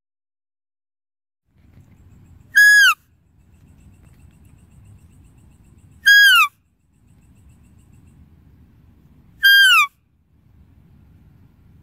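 Deer call: a short, high-pitched whistle-like note, repeated three times about three and a half seconds apart, each holding one pitch and dropping at the end, over a faint low rumble.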